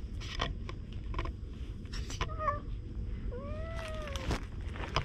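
Cat meowing twice: a short meow, then about a second later a longer one that rises and falls in pitch. A few short clicks and knocks around it.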